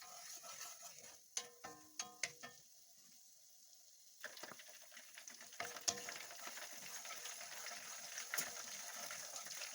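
Garlic sizzling in hot oil in a pan, the sizzle starting about four seconds in and holding steady. Before that, a few clinks of a metal utensil against the pan.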